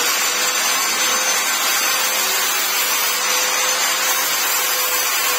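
Naphthalene ball and camphor tablet press machine running, its single-phase electric motor and chain drive giving a steady, even whirring hiss with a faint hum underneath.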